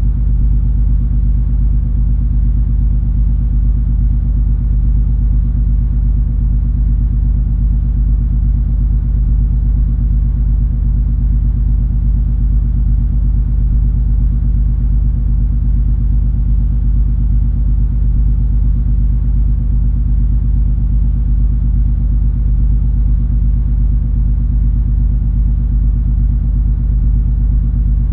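Cruise ferry MS Color Fantasy under way: a deep, steady engine rumble and hum that does not change.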